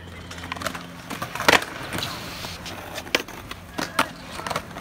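Stunt scooter decks and wheels knocking and clacking on concrete, with wheels rolling between. About a dozen sharp knocks come at irregular times, the loudest about a second and a half in.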